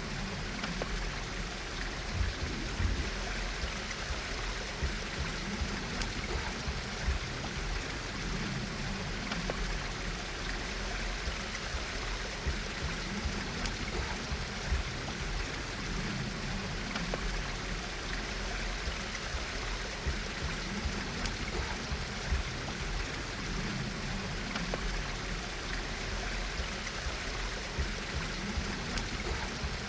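Running water, like a small forest stream, flowing steadily with a few faint clicks over it.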